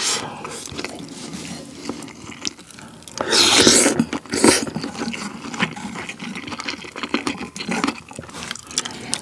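Close-miked eating sounds: wet chewing of rice and pork kimchi stew, with a loud slurp of the stew broth from a spoon about three seconds in, then more chewing.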